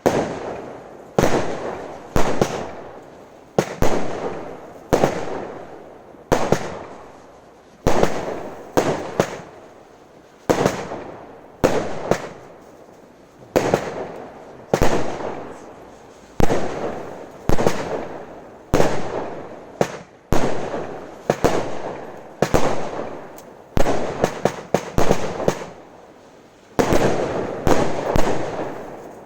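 Absolute Fireworks 'Happy Trolls' garden firework firing shot after shot, about one every second or so, each a sharp report whose sound fades away over about a second. The shots come in quicker flurries a few times, the last near the end.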